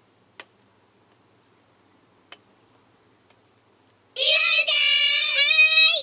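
Ribbon-chan character alarm clock going off about four seconds in with a loud, high-pitched recorded child-like voice that sounds sung or drawn out. Before it there are a few faint clicks.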